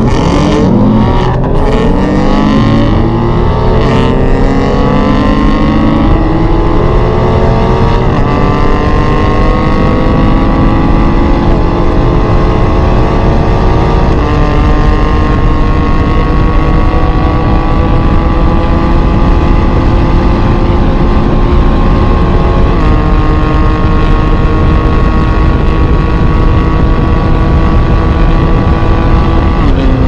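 High-performance car engine under full-throttle acceleration, its pitch climbing through each gear and dropping back at every upshift, the gears lasting longer as speed builds. Heard from inside the cabin.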